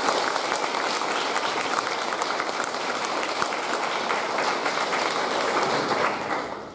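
Audience applauding, many people clapping together, dying away near the end.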